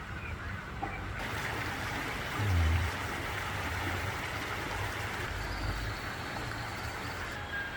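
Steady hiss of light rain (drizzle) falling, growing louder about a second in and easing near the end, with one low thump about two and a half seconds in.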